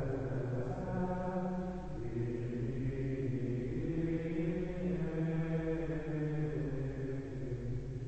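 Carthusian monks singing plainchant in unison: low men's voices holding slow, sustained notes, with a breath between phrases about two seconds in and a phrase ending near the end.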